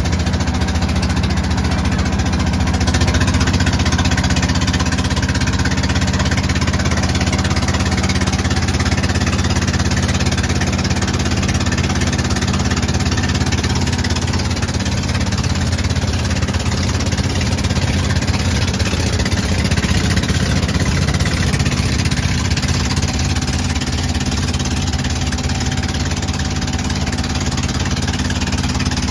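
Wooden river boat's engine running steadily, heard from on board, over a steady hiss of water and wind.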